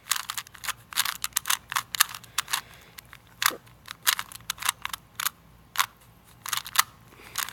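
Rubik's cube being turned quickly by hand: an irregular run of sharp plastic clicks and clacks as the layers snap round, several a second.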